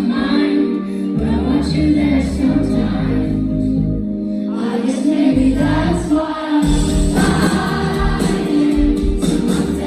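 Live pop song from the audience: guitar chords under singing, the sound thinning briefly mid-way and filling out again about seven seconds in.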